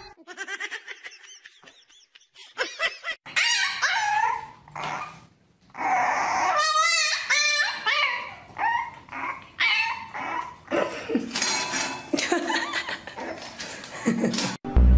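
A puppy whining and barking in a string of short calls that bend up and down in pitch, some of them wavering.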